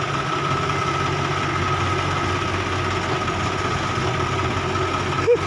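Diesel engine running steadily at a low, even speed, with a faint steady whine above the hum.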